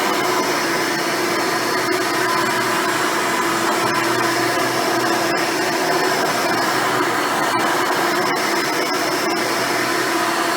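Hoover Elite upright vacuum cleaner running steadily, its motor and spinning dual-row brush roll giving a constant whine over airflow noise.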